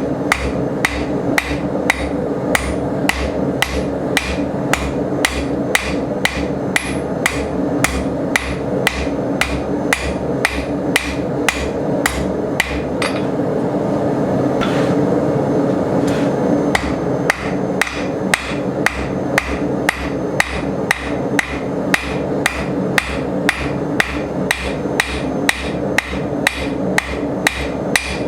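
Blacksmith's hammer striking steel on an anvil while forging a creasing hardy tool, in a steady rhythm of about two blows a second. The blows pause for a few seconds around the middle. A steady background noise runs underneath.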